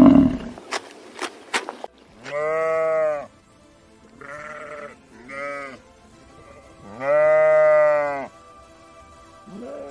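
A sheep bleating about five times in separate calls, the longest and loudest one about two-thirds of the way through. A few sharp clicks come before the first bleat.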